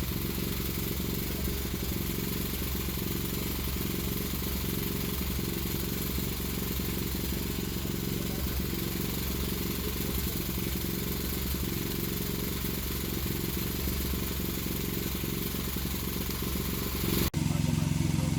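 A small engine running steadily at a constant speed. About 17 seconds in it cuts abruptly to a somewhat louder, lower hum.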